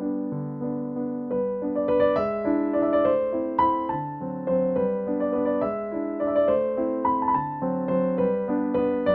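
Background music: an electric piano or piano playing a gentle melody over chords, with notes struck at an even pace.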